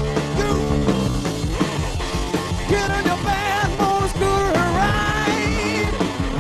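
Rock music with a steady drum beat, with a high lead line that wavers in pitch from about halfway through.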